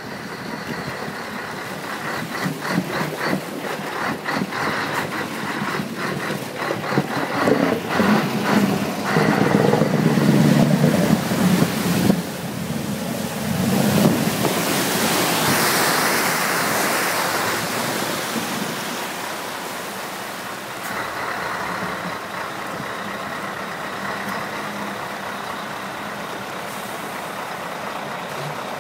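Scania 164 Topline truck's V8 running through open side pipes, revving up in pulses to its loudest about ten seconds in. A broad rushing hiss follows around fifteen seconds in, then the engine settles to a steadier run.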